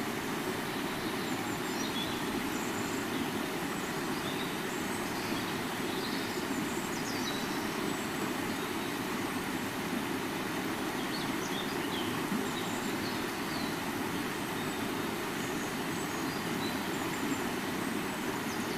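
River water flowing steadily, with scattered small bird chirps high above it.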